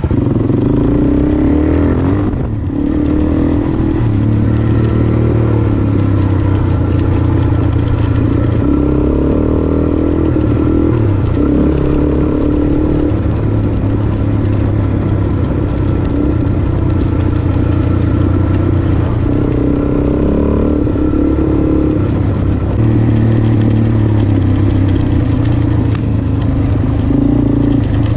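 Motorcycle engine running under way, its pitch stepping up and down with throttle and gear changes and holding a steady note for a few seconds at a time, with a brief lull about two and a half seconds in.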